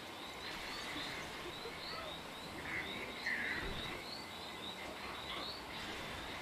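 Nature ambience: a steady run of short, high chirps, about three a second, over a soft hiss, with a couple of louder calls about three seconds in.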